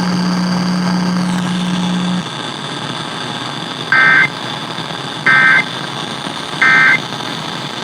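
Emergency Alert System end-of-message signal, received over the air: three short, identical bursts of warbling SAME data tones about a second and a half apart, over a background of receiver hiss. A steady low hum stops about two seconds in, before the bursts.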